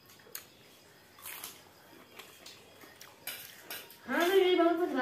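Light clinks and scrapes of a spoon and fingers on stainless steel plates during a meal. About four seconds in, a woman's voice comes in loudly.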